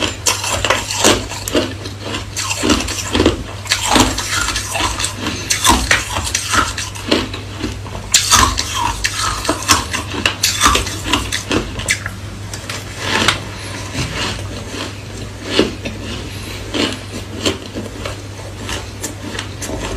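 Hard crushed ice being bitten and crunched, with many irregular sharp cracks and clinks of ice pieces.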